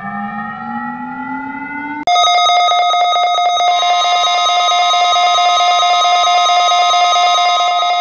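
An emergency alert siren tone slowly rising in pitch, cut off about two seconds in by a louder emergency alert tone: a steady chord of high beeping tones over a fast, even pulsing buzz.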